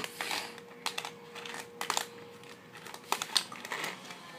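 Several irregular plastic clicks and clacks from a 3x3 Rubik's cube being handled and turned in the hand.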